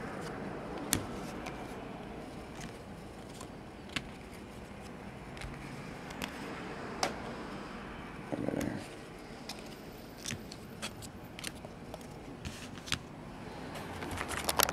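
Trading cards in plastic holders being set down and arranged on a table: scattered light clicks and taps over steady background noise.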